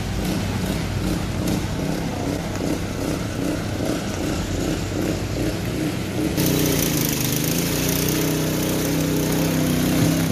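An engine running steadily. About six seconds in the sound changes abruptly to a different engine tone under a steady hiss that fits rain falling on floodwater.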